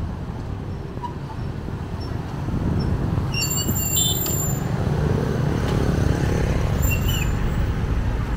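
Street traffic, with motorbike and car engines passing close by. The rumble grows louder about two and a half seconds in, and brief high chirps come near the middle and again near the end.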